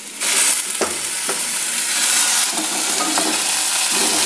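Cut tomato pieces hitting hot mustard oil in a frying pan with onions and ginger-garlic paste: a sudden loud sizzle about a quarter second in that settles into steady frying, with a couple of knocks from the spatula stirring the pan.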